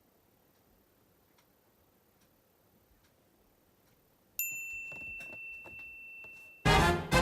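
Toy magic wand's electronic sound chip: after a few faint clicks of handling, a steady high electronic tone sounds for about two seconds, then a loud tinny jingle starts near the end.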